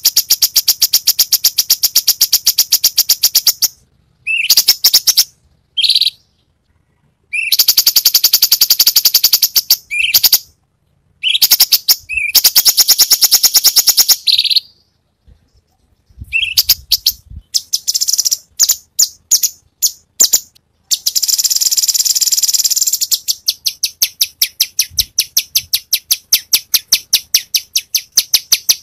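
Cucak cungkok singing in rapid-fire runs of fast repeated notes, each run lasting a few seconds with short pauses between. A harsher, continuous buzzy phrase comes about two-thirds of the way through, then the rapid note bursts resume.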